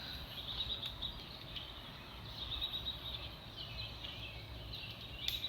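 Faint outdoor ambience: small birds chirping in short high trills every second or so, over a low rumble.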